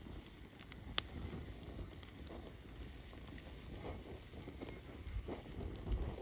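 Bonfire crackling softly, with one sharp pop about a second in and a few fainter snaps.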